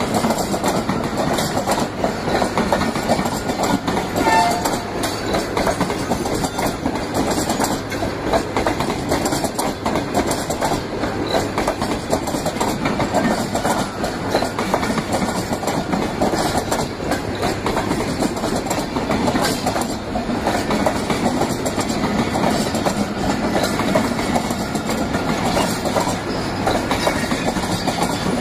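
Pakistan Railways passenger coaches rolling past at close range, their wheels clattering steadily over the rail joints.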